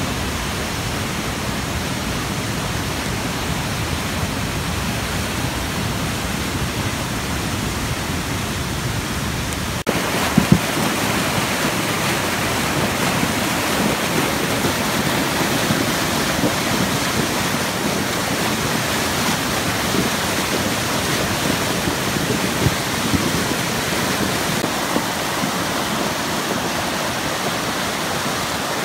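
Creek in flood: muddy floodwater rushing and churning in a steady, loud rush. About ten seconds in it becomes louder and fuller, with a couple of brief knocks.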